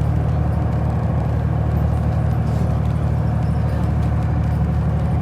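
Steady low rumble of a moving road vehicle, even and unbroken, with no distinct events.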